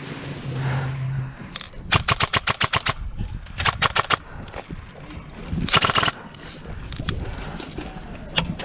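Airsoft guns firing: a fast full-auto burst of about ten shots, a shorter burst a second later, another dense burst near the middle, then a couple of single shots near the end.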